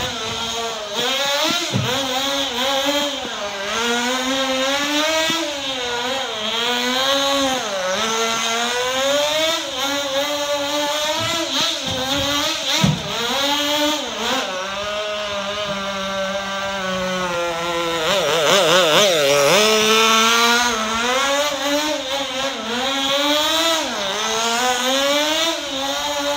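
Small nitro engine of a Sportwerks Chaos 1/16-scale RC buggy, revving up and down continuously as it is driven around the track, its pitch rising and falling every second or two. About two-thirds of the way through it holds a higher, wavering rev for a couple of seconds.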